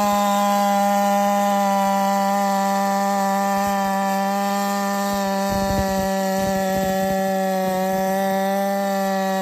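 Holtzfforma 372 clone two-stroke chainsaw held at full throttle through a long cut, its engine note steady and high, sagging slightly as the cut goes on.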